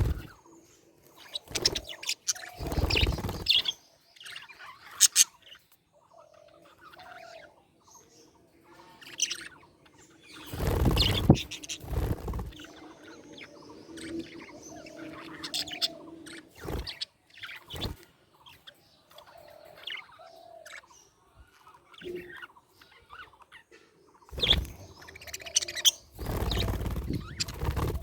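Budgerigars chirping and chattering in many short calls. Three times, about a second or two each, a louder burst of rustling noise rises over them.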